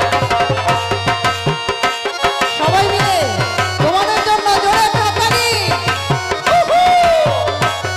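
Instrumental passage of a Bengali Baul folk song: a hand drum plays a quick, even beat over a steady low hum. A sliding, wavering melody comes in about two and a half seconds in and drops out near seven seconds.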